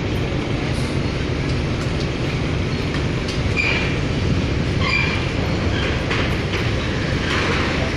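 Steady low rumble of a car ferry's engines heard from on board, with a few brief higher sounds about halfway through.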